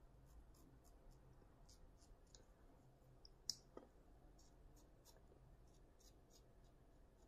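Double-edge safety razor cutting through lathered stubble in short strokes: faint, quick scratchy clicks several times a second, with one sharper click about three and a half seconds in.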